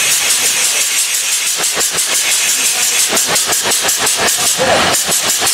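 Steam locomotive exhaust: rapid, evenly spaced chuffs, several a second, over a steady hiss of steam, from Union Pacific 844, a 4-8-4 Northern, working at speed.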